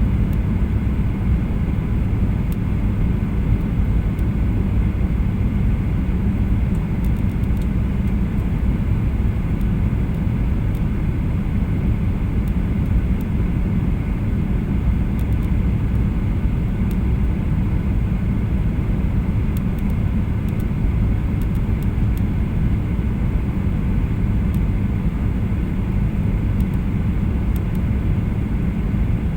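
Steady cabin noise of a Boeing 737-800 in flight: a loud, even rumble of its CFM56 engines and airflow with a fainter hiss, heard from inside the passenger cabin.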